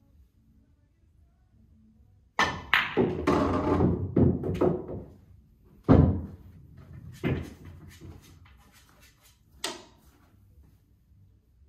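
A pool shot on a Diamond 9-foot Pro-Am table: a sharp cue-tip strike about two seconds in, then a quick run of billiard balls clacking and hitting the cushions. About six seconds in comes the loudest, a heavy thunk of a ball dropping into a pocket, followed by two more single knocks.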